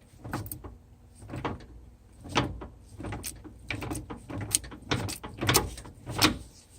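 Ford 8.8 Traction-Lok limited-slip differential turned slowly under load, giving irregular clunks and clicks about one to two a second, with the gear oil squishing between them. The clunking is typical of worn spider gears with play; the owner thinks the clutch-pack ears and S-spring knocking also make some of the noise.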